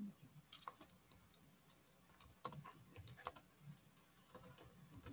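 Faint typing on a computer keyboard: irregular clusters of soft key clicks.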